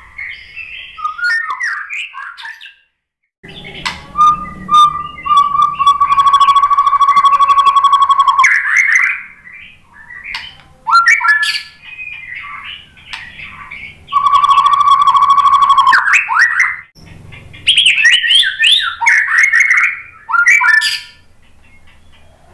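White-rumped shama (murai batu) singing loud phrases of clear, sliding whistled notes. Twice it holds a long level whistle with a fast rattling trill over it, about four to eight seconds in and again about fourteen to sixteen seconds in.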